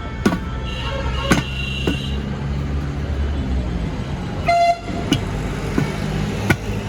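Vehicle horns honking in street traffic: a longer honk about a second in and a short, higher honk just past the middle, over a steady low engine hum, with sharp knocks every second or so.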